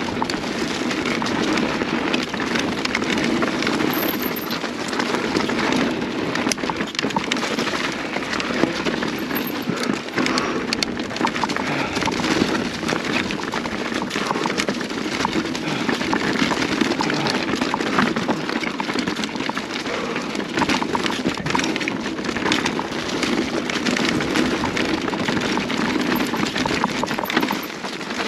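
Mountain bike rolling fast over a leaf-covered dirt singletrack: a steady rumble and crunch from the tyres on dirt and dry leaves, with frequent rattles and knocks as the bike rides over roots and rocks.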